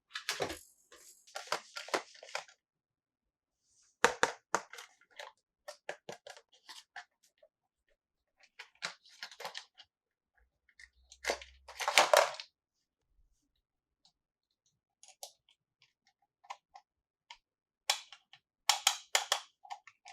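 Plastic wrapping crinkling and small plastic toy pieces clicking and tapping as they are handled, in irregular bursts with short pauses. The loudest crinkle comes a little past halfway.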